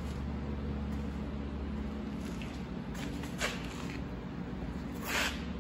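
Steady low room hum, with two short hissing scuffs: a brief one about three and a half seconds in and a slightly longer one about five seconds in.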